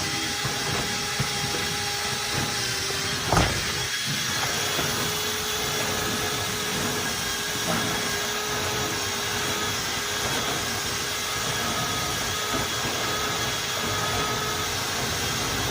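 Electric drill running steadily, spinning a rotary brush inside the vertical dryer vent pipe to scrape out lint, with a single knock about three and a half seconds in.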